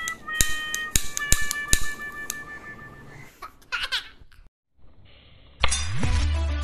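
A pocket lighter clicked again and again, a run of sharp clicks over a few held electronic tones. About three and a half seconds in comes a short laugh-like sound. Near the end, after a brief gap, music starts with a rising sweep.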